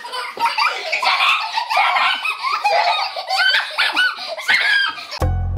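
Young girls laughing hard in quick high-pitched peals; music with a heavy bass beat cuts in abruptly right at the end.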